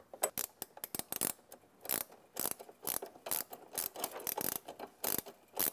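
Ratchet wrench clicking in short runs of sharp clicks as the bolts of a golf cart's solenoid and resistor mount are tightened.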